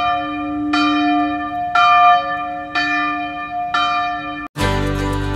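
A church bell tolling, one stroke about every second, each left ringing into the next. Near the end it cuts off suddenly and guitar music starts.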